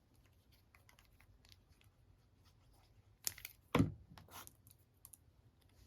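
Faint clicks and rustles of card and small tools being handled on a craft desk, with two sharp knocks about half a second apart just after three seconds in, then light paper rustling.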